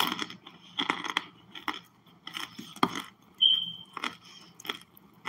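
Chunks of hardened, packed cornstarch being bitten and chewed: a run of irregular, crisp crunches. About three and a half seconds in there is a louder crunch, followed by a brief high whistle-like tone.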